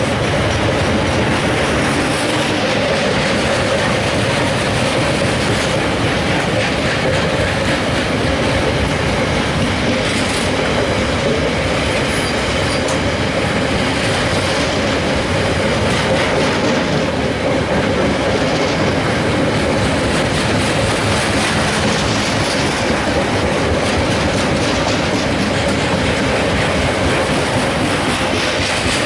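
Loaded freight wagons of a Class 66-hauled train rolling past close by: a steady, loud noise of wheels running over the rails, with a constant tone held underneath it.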